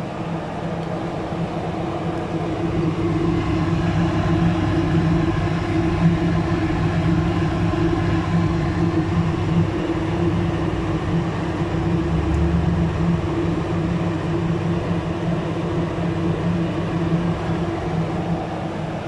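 A steady mechanical hum with a low drone, swelling a little a few seconds in and then holding level.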